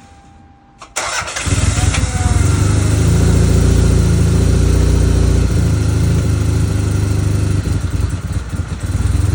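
The Celica All-Trac Turbo's 2.0-litre turbocharged four-cylinder engine starts suddenly about a second in. It then runs with a steady low rumble.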